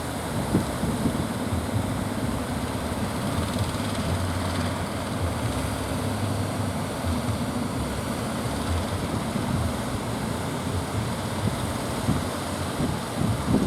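Fishing boat's engine running steadily with a low hum, over a haze of surf and wind.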